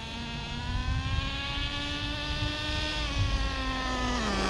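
Traxxas Nitro Rustler's small 2.5 nitro engine running at part throttle, its pitch rising slowly and then falling back to a lower steady note a little after four seconds in. The engine is fresh out of the box and on break-in, held to about quarter throttle.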